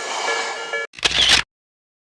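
Train running past a level crossing, with a steady rumble and several held high tones over it. The sound cuts off abruptly just under a second in, followed by a brief half-second burst of a different sound, then dead silence.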